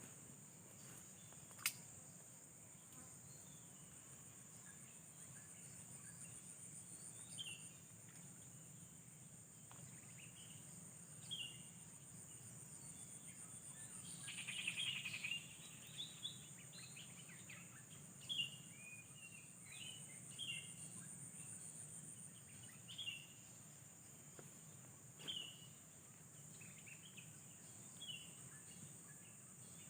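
A steady high insect trill, with short bird chirps scattered throughout, a sharp click about two seconds in, and a busier burst of chirping about halfway through.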